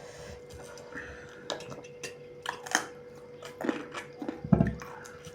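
Close-up chewing and mouth smacking of people eating pork and rice, with scattered small clicks. A louder thump comes about four and a half seconds in, over a faint steady hum.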